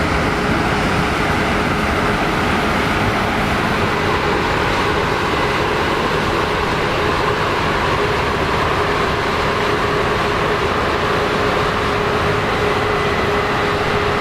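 Case IH Axial-Flow combine harvester running steadily: a dense, even machine noise with a constant hum.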